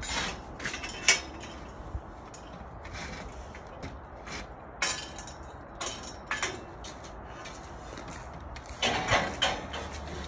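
Metal scaffolding parts clinking and knocking as a guardrail frame is lifted and hooked onto the scaffold: scattered knocks, the sharpest about a second in, and a short burst of clatter near the end.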